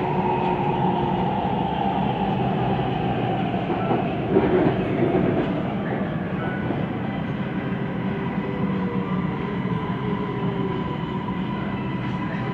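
Siemens Inspiro metro train heard from inside the car: steady wheel rolling noise with a hum and a steady whine. A motor tone falls slowly in pitch from about halfway through, as the train slows.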